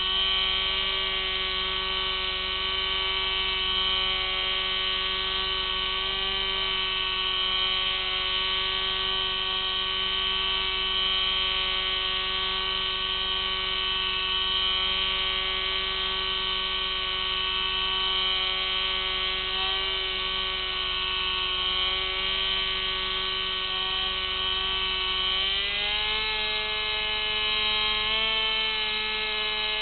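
Electric motor and propeller of an FPV model aircraft whining steadily, heard from its onboard camera. The pitch steps up about 26 seconds in and holds there.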